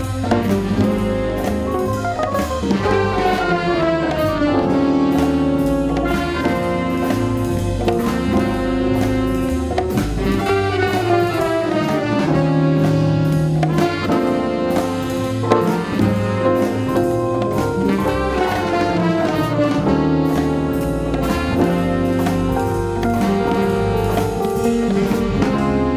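Small jazz group playing: saxophone lines over archtop guitar, piano, bass and drums, with several fast descending runs.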